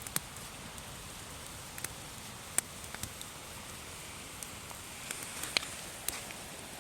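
Wood campfire burning: a steady soft hiss with sharp crackles and pops every second or so, two of them louder than the rest.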